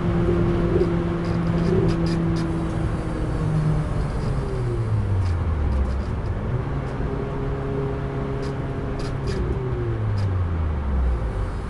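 In-cabin sound of a Renault Clio RS 200's 2.0-litre four-cylinder engine at speed on track, with tyre and wind noise. The engine note holds steady, drops in pitch about four seconds in as the car slows, levels off, then drops again near the end.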